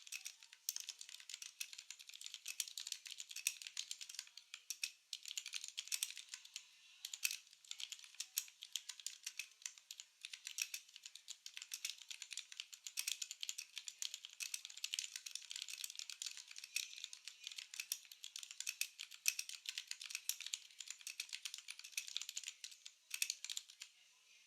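Typing on a Vortex VX5 60% mechanical keyboard with lubed Outemu Brown tactile switches and a foam mod: fast, steady keystroke clicks with a few brief pauses, stopping just before the end.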